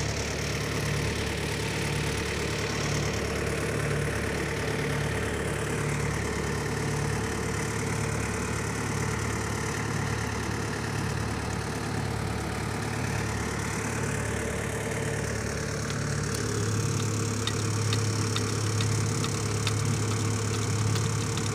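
A heavy diesel engine idling steadily with a pulsing low note. About sixteen seconds in the note changes and settles into a steadier, stronger hum, and light ticking comes in on top.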